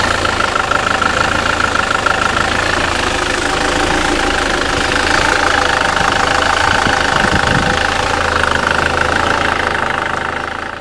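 SsangYong Kyron's 141 hp diesel engine idling steadily after a new dual-mass flywheel has been fitted, running smoothly with none of the earlier knocking. The sound cuts off abruptly at the very end.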